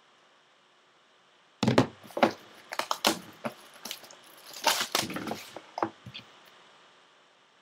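A cardboard trading-card box being opened and its foil-wrapped pack torn by hand: a run of sharp cracks and crinkles starting about a second and a half in and stopping about six seconds in.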